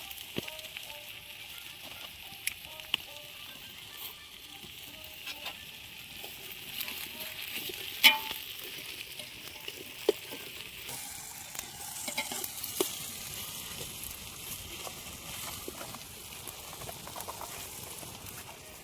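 Curry masala sizzling steadily in a pan of hot oil as it is stirred, with sharp knocks of the spoon against the pan here and there, the loudest about eight seconds in.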